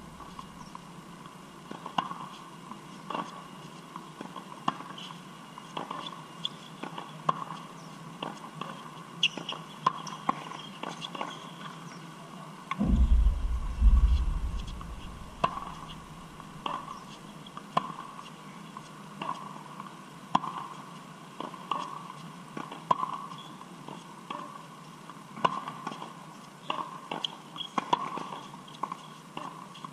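Tennis rally on a hard court: sharp pops of the ball striking strings and bouncing, roughly once a second, with shoes scuffing between shots. A loud low rumble rises briefly about halfway through.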